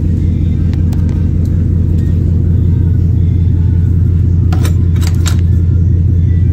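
Ford Mustang GT's 5.0 Coyote V8 idling steadily with a deep, even rumble, running again after a blown piston had seized it. A few sharp clicks come about four and a half to five seconds in.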